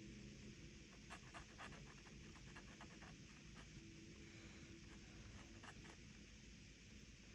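Faint scratching of a metal dip pen nib on sketchbook paper: a scatter of short, quick strokes making little marks.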